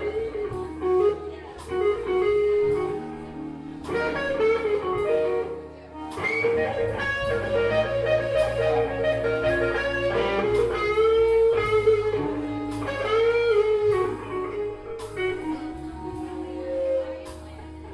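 Electric blues band playing live: electric guitar, bass and drums, with a lead line of bent, wavering notes over steady bass notes.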